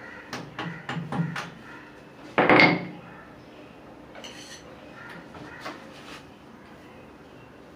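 Metal clinks and knocks from plumbing tools and fittings being handled, with one louder clatter about two and a half seconds in, then a few faint knocks.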